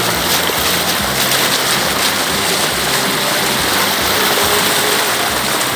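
River rapids: a steady, loud rush of white water pouring over rocks.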